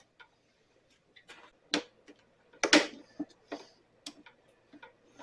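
Scattered light clicks and knocks of hand tools and parts being handled, with two louder knocks about two and three seconds in.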